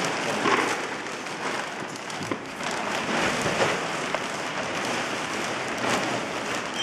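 Large clear plastic bag crinkling and crackling as it is pulled over and pressed around a bubble-wrapped robot.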